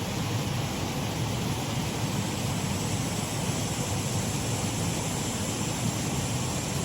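Shallow waterfall on a mill race stream: water pouring and rushing steadily.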